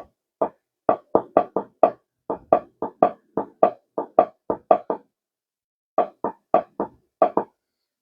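A quick run of about two dozen short, sharp knocks or taps, roughly four a second, broken by a pause about five seconds in.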